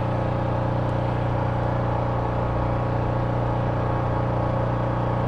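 Small engine on a bowfishing boat running at a steady speed: a constant low hum that does not change.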